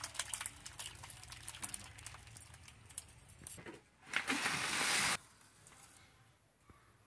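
Thick potato curry being poured from a metal cooking pot into a steel bowl, with liquid splashing and clinks of metal on metal. About four seconds in, a loud, even hiss lasts about a second and cuts off sharply.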